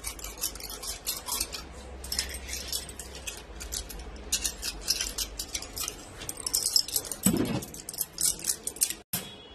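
Small metal objects clicking and jingling rapidly and irregularly as they are handled in the hands.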